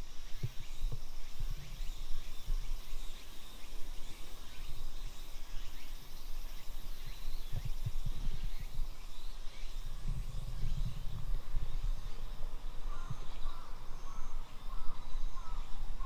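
Outdoor ambience under trees: irregular footsteps and a low wind rumble on the microphone, over a steady chirring of insects, with a crow cawing a few times near the end.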